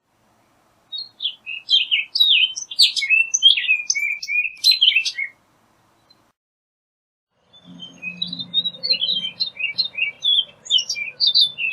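Orchard oriole singing: two bursts of rapid, varied whistled and slurred notes, the first lasting about four seconds, the second starting about two seconds after it ends. A faint low hum sits under the second burst.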